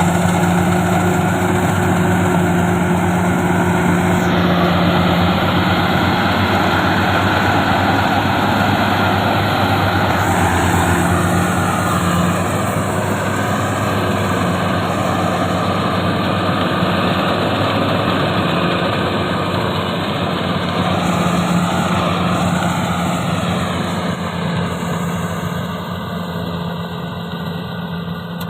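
Rice combine harvester running steadily: a low engine drone with machinery noise over it, growing quieter near the end.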